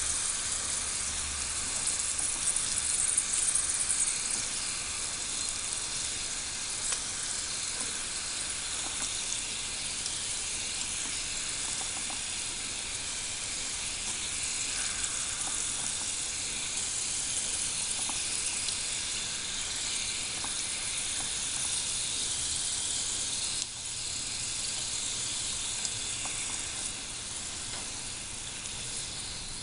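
Hot oil sizzling steadily as potato strips deep-fry in a miniature pot, a little louder in the first few seconds.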